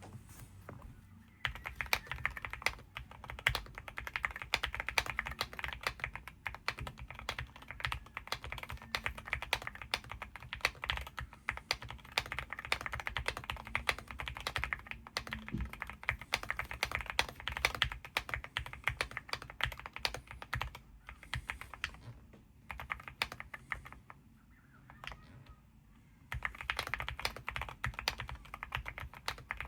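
Continuous fast typing on a stock Weikav Lucky65 v3 mechanical keyboard with Akko Rosewood switches and double-shot PBT keycaps, a quiet thock. It starts about a second and a half in, eases off briefly near the end, then picks up again.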